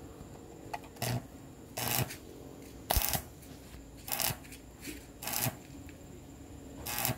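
Stick (arc) welder laying short tack welds on the steel plates of a wheelbarrow wheel: six brief crackling bursts of the arc, each under half a second, about one a second.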